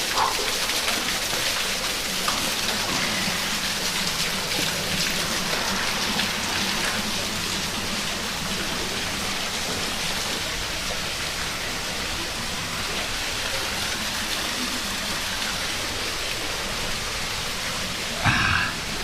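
A small waterfall pouring and splashing right beside the microphone, a steady rushing hiss of falling water. A brief louder sound breaks in just before the end.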